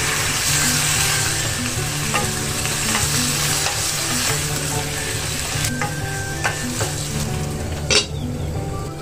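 Pork belly and curry paste sizzling in oil in a small pan while a wooden spatula stirs them, with a few light knocks of the spatula against the pan. Just before the end a glass lid is set on the pan with a sharp clatter, and the sizzle turns muffled under it.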